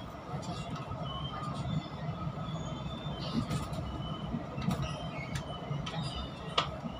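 Chu-Kuang Express passenger train running at speed: a steady rumble of wheels on rail, with brief high wheel squeals and scattered sharp clicks, the loudest click near the end.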